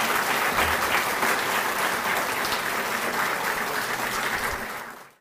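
Audience applauding: many hands clapping in a steady, dense wash that fades out near the end.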